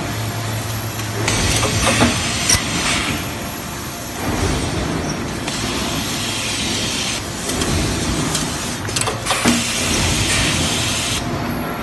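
Automatic nut feeder and resistance nut-welding machine running: a low hum for the first two seconds, long stretches of compressed-air hiss, and a few sharp clacks of the welding press striking.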